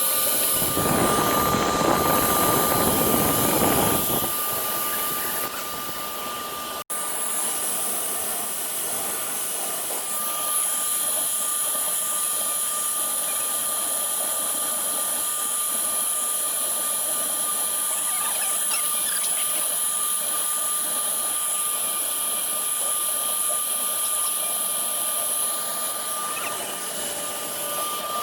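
CNC router spindle running with a steady high whine as it engraves MDF. A louder, rougher cutting noise fills the first few seconds, and the sound briefly cuts out near seven seconds.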